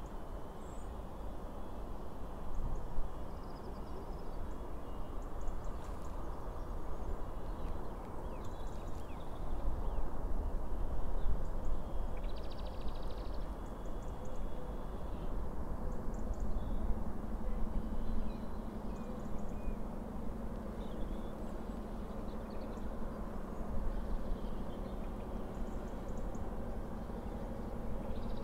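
Outdoor background noise: a steady low rumble with scattered short, high bird-like chirps. A low steady hum joins about halfway through.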